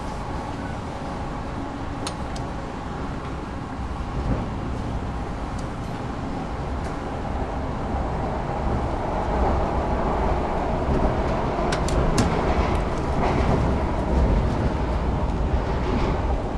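Interior of an electric passenger train running between stations: a steady rumble of wheels on rail with a faint whine. A few sharp clicks come through, and it grows louder over the second half.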